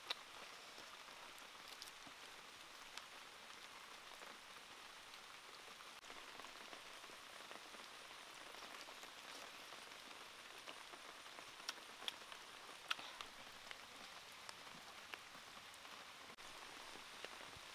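Faint, steady patter of light rain, with a few sharp little clicks about twelve to thirteen seconds in.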